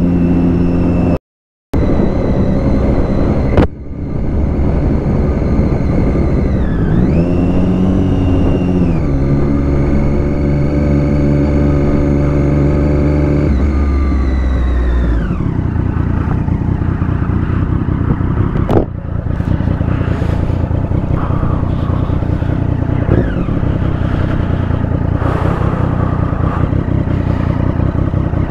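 Motorcycle engine running while riding along. Its pitch holds, dips and rises again a few seconds in, then falls away about halfway through as the bike slows, leaving a steady rushing noise with the engine lower. The sound cuts out briefly about a second in.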